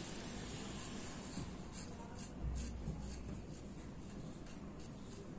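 Safety razor blade scraping through stubble in short repeated strokes, about two a second. The blade is a Topaz Platinum on its second use, in a Gillette 7 o'clock razor, and the shaver found it pulled and tugged a lot.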